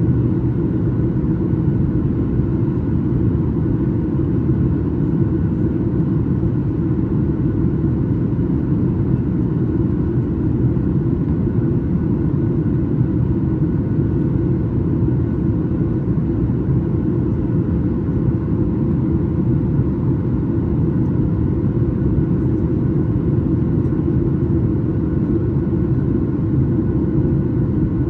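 Steady cabin drone of a Boeing 737 MAX 8's CFM LEAP-1B jet engines and the rushing airflow, heard from a passenger seat, with a constant hum running under it.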